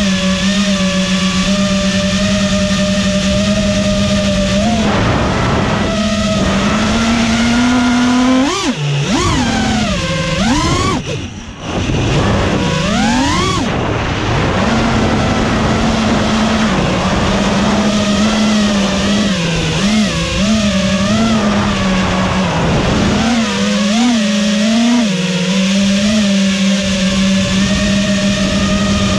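FPV drone's electric motors and propellers buzzing at a steady pitch. A third of the way in they swoop sharply up and down several times as the throttle is punched and cut, briefly dropping away at one point, then settle back to a steady buzz with a few smaller pitch wobbles later on.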